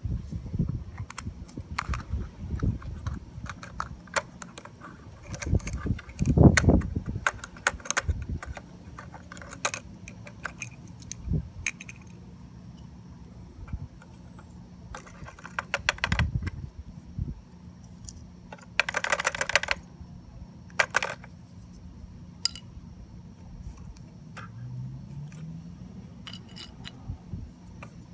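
Light clicks, taps and rattles of a small plastic toy crate and a diecast model rear-loader garbage truck handled by hand as the crate is tipped into the hopper, with a few short rustling scrapes of paper scraps going in.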